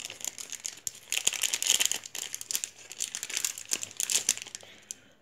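A small plastic accessory packet being torn open and handled, crinkling in a dense run of sharp crackles from about a second in until near the end.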